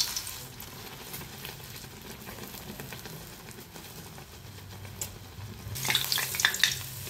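Medu vada batter sizzling steadily in hot oil, held down in a metal tea strainer dipped into the oil of a kadai. About six seconds in, a metal spatula clatters and scrapes against the pan as it frees the vada.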